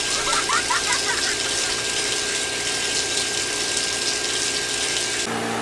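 A steady rushing, hissing noise like gushing water, with a few short high-pitched squeaky voices in the first second; about five seconds in the rushing stops suddenly and steady musical tones take over.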